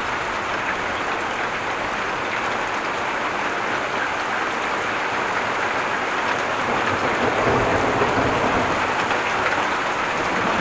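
Heavy rain falling hard, a steady dense hiss that grows a little louder about two thirds of the way in.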